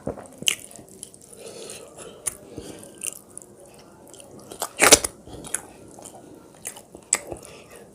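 Close-miked chewing of a mouthful of rice and fish, with scattered sharp crunches, the loudest about five seconds in.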